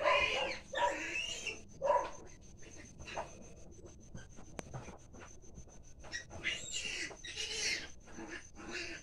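Newborn piglets squealing in short, high-pitched calls, a cluster in the first two seconds and another a few seconds later, over a faint steady high whine.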